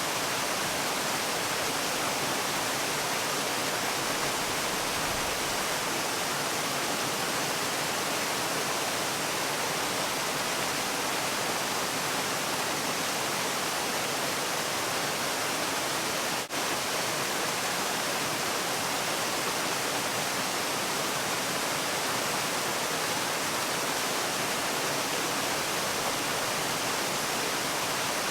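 Water falling in a waterfall, a steady even rush, with a split-second dropout just past halfway.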